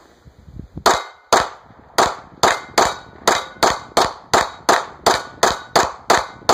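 A Glock 19 Gen 3 9mm pistol firing a rapid string of about fifteen shots, two to three a second, starting about a second in.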